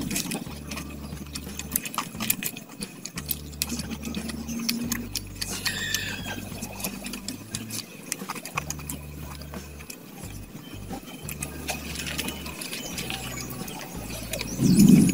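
Fried chicken being pulled apart by hand and chewed, with many small irregular wet smacking and crackling clicks. A short, louder low sound comes near the end.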